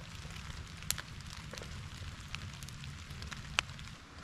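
Small campfire crackling, with scattered sharp pops (a louder one about a second in and another later on) over a low steady rumble and light rain.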